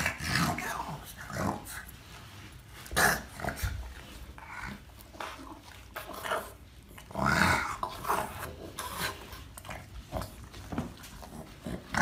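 Boston terrier grunting and growling in short, irregular bursts as it squirms on its back on carpeted stairs, its body rubbing against the carpet. The loudest bursts come about 3 seconds in and about 7 seconds in.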